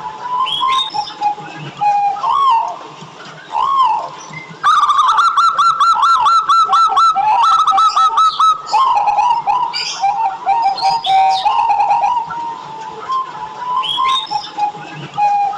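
Zebra doves (perkutut) cooing in arching, rolling notes. About a third of the way in there is a fast, even run of repeated notes for a few seconds. Smaller birds chirp higher up in the background.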